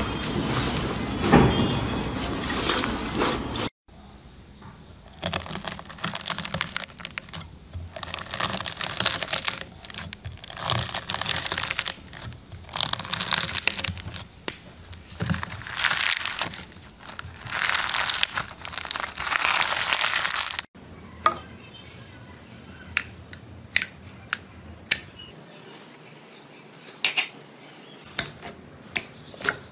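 Slime being handled in three short clips. First, fluffy green slime is squeezed by hand with a dense crackle. Then a knife slices through dark blue slime packed with beads, making about seven crunchy crackling strokes, one every two seconds or so. Last, clear pink slime is pressed, with scattered sharp pops and clicks.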